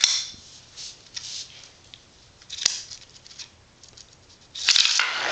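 Small sharp clicks and taps of metal magnet pieces being handled and set against a magnetic rail track, then a louder clatter about four and a half seconds in that fades over a second.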